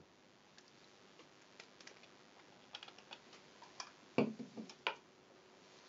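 Faint, irregular light clicks and taps, with a brief louder sound about four seconds in.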